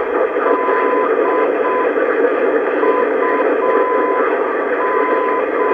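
Aviation non-directional beacon on 905 kHz heard through a shortwave receiver's speaker: a steady tone slowly keying its call letters UD in Morse code (dash-dot-dot, dot-dot-dash, dash-dot-dot) over a constant hiss of band noise. The signal is not very loud, with interference from broadcast stations on the neighbouring frequencies.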